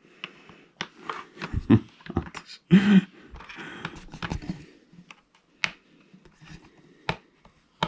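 Hard plastic toy parts clicking and knocking irregularly as an orange plastic drawbar is worked into the hitch of a toy flatbed trailer, with light rustling of handling between the clicks.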